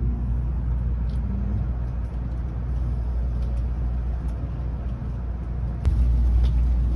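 Steady low rumble inside a Tokaido Shinkansen passenger car. About six seconds in there is a sharp knock, and the rumble becomes suddenly louder.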